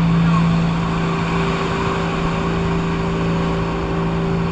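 Motor of a bangka outrigger boat running with a steady drone, over a continuous rushing noise.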